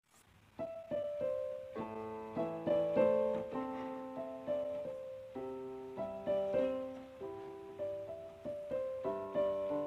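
Gentle piano music: a slow melody of struck notes and chords, each ringing and fading, beginning about half a second in.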